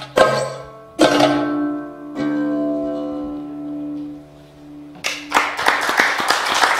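A few last notes and chords plucked on a Godin Multioud, a fretless oud-style instrument, with the final chord ringing out and fading. About five seconds in, applause breaks out.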